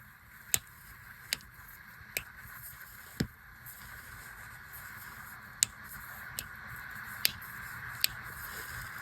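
Joints cracking during a chiropractic adjustment: about eight sharp pops, irregularly spaced roughly a second apart, over a steady hiss.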